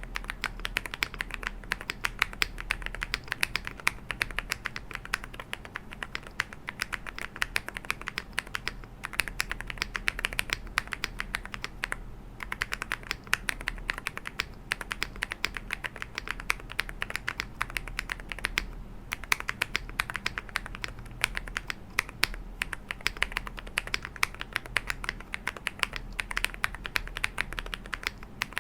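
Mechanical keyboard typed on quickly and continuously: Monka 6087 with Dareu Snow linear switches on an FR4 plate, tape-modded and fully foamed, under doubleshot ABS Cherry-profile keycaps, giving a dense run of keystroke clacks with a couple of brief pauses.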